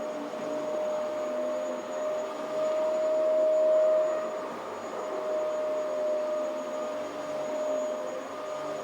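Vacuum cleaner running: a steady motor whine over a hiss of rushing air, growing louder for a moment about three seconds in.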